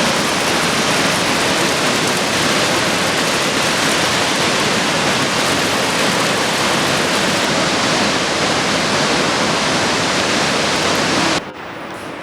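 Waterfall: loud, steady noise of falling water, which drops suddenly to a much quieter rush near the end.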